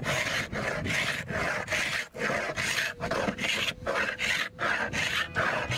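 Hand scraper rasping over the painted plywood roof of a wheelhouse in quick back-and-forth strokes, about three a second, stripping off the old paint.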